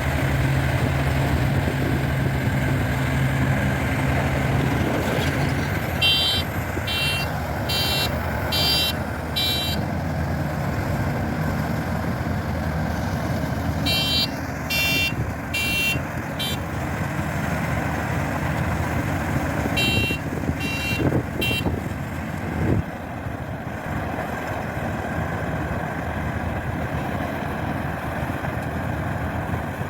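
Rice combine harvester's engine and machinery running steadily, with three runs of high electronic beeping, about two beeps a second, sounding over it.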